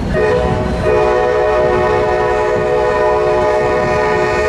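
Locomotive multi-chime air horn sounding one long blast of about four and a half seconds, with one note dropping out briefly near the start. One chime element is fouled, so the chord sounds off.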